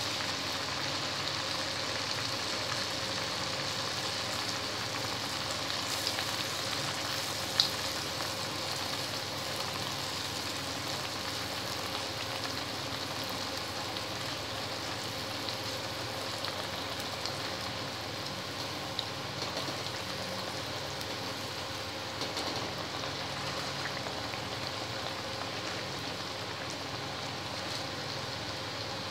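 Aloo puri dough deep-frying in hot oil in a steel wok: a steady sizzle of bubbling oil. There is one sharp click a little over seven seconds in.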